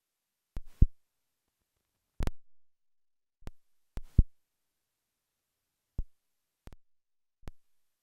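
Dead silence on a dropped-out microphone feed, broken by about nine short, irregular clicks and thumps, the loudest a little under a second in and again about four seconds in.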